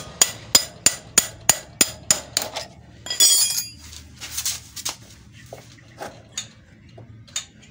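Rapid metal-on-metal blows, about three a second, as a spanner strikes a screwdriver held against a Honda CD 70's rear axle to drive the axle out. The blows stop about two and a half seconds in. A ringing metallic clatter follows a little after three seconds, then a few scattered light clinks.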